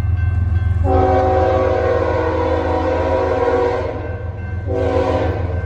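A Union Pacific locomotive's five-chime Nathan K5HL air horn sounds a long blast starting about a second in, then a short blast near the end, as the train approaches the crossing. The crossing's electronic bells ring steadily beneath, over a low rumble.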